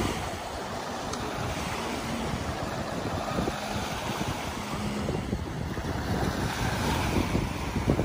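Small sea waves washing and breaking on a sandy shore, with wind buffeting the microphone.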